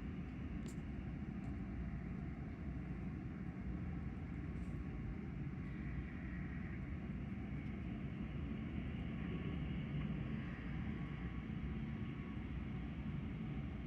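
Wind buffeting the microphone: a steady low rumble, with two faint clicks, one about a second in and one near five seconds.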